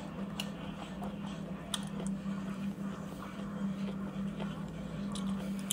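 Quiet eating at a table: a few faint light clicks and taps of disposable wooden chopsticks handling food, over a steady low hum in the room.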